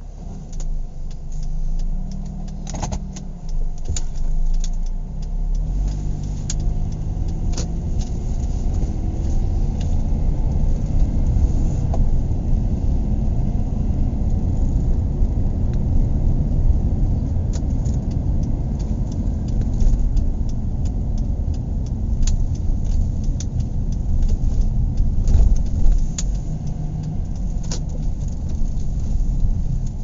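Car interior noise while driving: engine and road rumble, the engine pitch rising in steps over the first few seconds as the car speeds up, then a steady drive. Occasional light clicks and rattles sound from inside the cabin.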